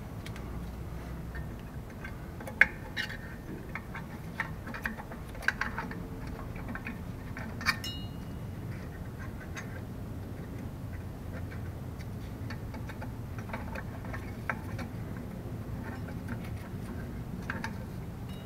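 Rear drum brake shoes, return springs and hardware of a 1981 K5 Blazer being handled on the backing plate: scattered small metal clicks and clinks. There is a sharper click about two and a half seconds in, and a click near eight seconds rings briefly.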